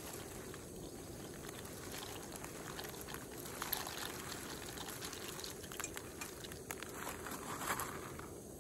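Dry pasta poured from a plastic bag into a small steel kettle of boiling water on a portable gas canister stove: the bag crinkles and the pasta rattles in, over the steady sound of the water boiling on the burner. The rustling is loudest about four seconds in and again near the end.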